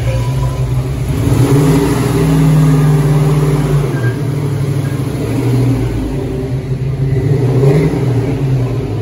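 Fox-body Ford Mustang's 5.0-litre V8 running at low speed as the car drives slowly off, its pitch rising on light throttle about one and a half seconds in, settling back, and lifting briefly again near the end.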